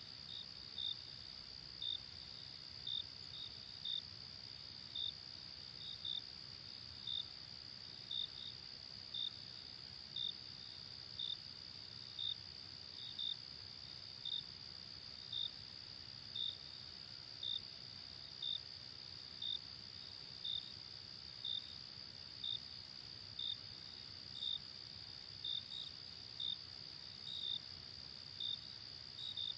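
Crickets chirping on a summer night: a steady, high-pitched trill from many insects, with one louder cricket chirping about once a second over it.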